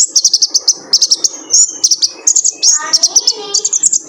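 Male kolibri ninja sunbird singing a fast, high-pitched twittering song in short repeated bursts with brief gaps between them.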